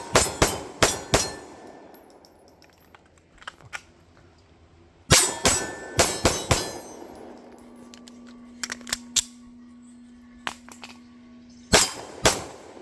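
Pistol shots fired in three quick strings of about four to five rounds each, each shot ringing out briefly, with a few fainter cracks between the strings.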